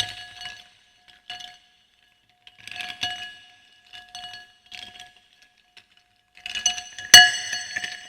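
Gem-shaped ice cubes clinking against a glass of water in short bursts, the glass ringing after each knock; the loudest clink comes about seven seconds in, followed by a quick run of clinks.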